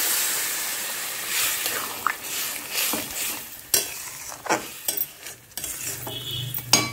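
A kadai of vegetable curry sizzling as warm water hits the hot oil, the sizzle dying away over the first couple of seconds. Then a metal spatula scrapes and knocks against the pan as the wet curry is stirred.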